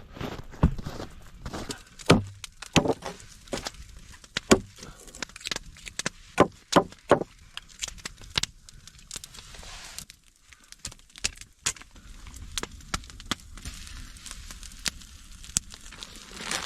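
Raw whole chicken being cut and handled for spatchcocking: irregular sharp cracks, snaps and clicks of the backbone being cut out and the bird pressed flat, with a few heavier knocks in between.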